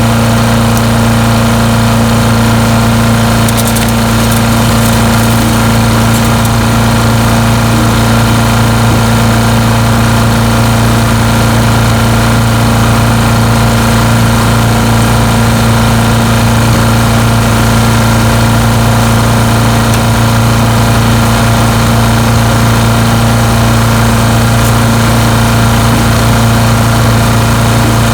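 Landworks 7 hp chipper shredder's petrol engine running steadily at constant speed, a loud, even hum.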